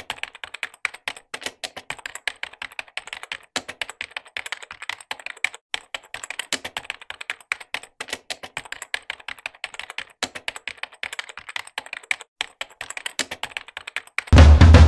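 Typing on a computer keyboard: a long run of quick, irregular key clicks. Near the end, loud drum-heavy music cuts in.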